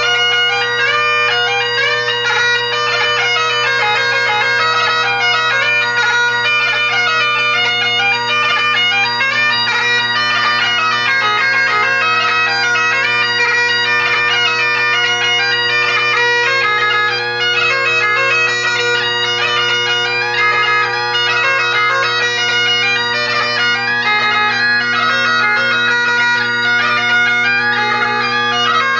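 Great Highland bagpipe played solo: steady drones sound continuously under a quickly moving chanter melody.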